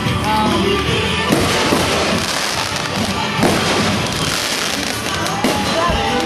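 Fireworks going off: several sharp bangs about a second, three and a half and five and a half seconds in, over music and voices.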